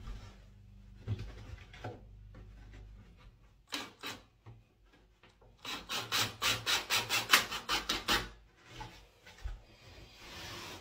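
Cordless drill driving pocket screws into a wooden board joint, the screw grinding and rasping into the wood. A couple of short bursts come first, then a longer, quick rhythmic series of rasps in the middle, the loudest part.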